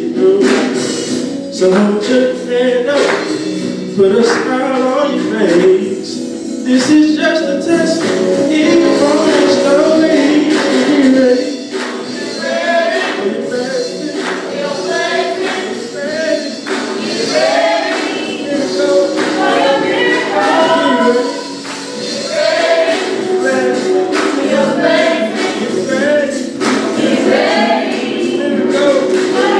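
A small gospel praise team singing together through microphones, with hand-clapping on the beat.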